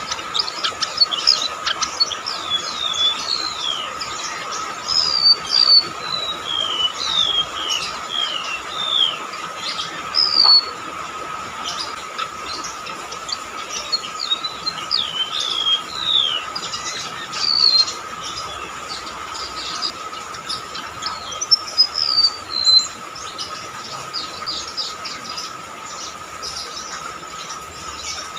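Golden-bellied gerygone (rametuk laut) singing: runs of thin, high, down-slurred whistles in quick succession. The song comes in three bouts with short pauses between, over a steady faint high hum.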